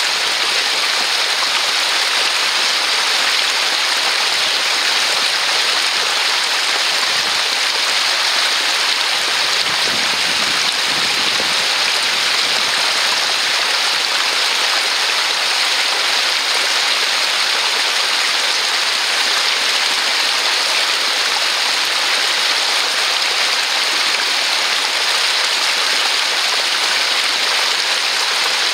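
Small stream of water splashing over stones, with drops falling from a mossy rock overhang into it; a steady rush of water.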